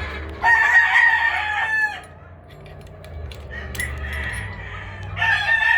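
Gamefowl roosters crowing: one full crow about half a second in, a fainter call in the middle, and another crow starting near the end.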